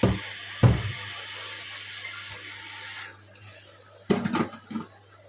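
Hot air rework station blowing a steady hiss as a small part is soldered onto the motherboard; the airflow cuts off about three seconds in. There are two dull knocks near the start and a short clatter of handling about four seconds in.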